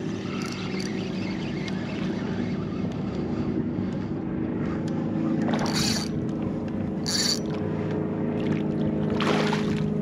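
Electric trolling motor of a motorized fishing kayak humming steadily, with a couple of brief hisses in the middle and a splash near the end as a hooked redfish thrashes at the surface.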